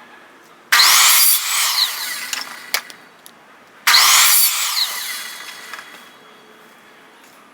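Electric power saw run twice, cutting pieces to length: each run starts suddenly with a rising whine and winds down over a second or two.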